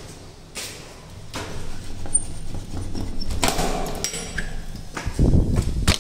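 Footsteps on stairs, then a metal tower bolt on a wooden door is slid back with a clatter and the door is pushed open. Near the end there is a low rumble of wind on the microphone.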